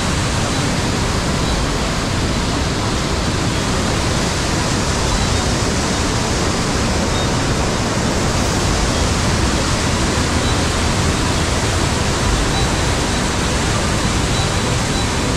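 Steady, loud rush of a waterfall, white water pouring down a narrow rock gorge.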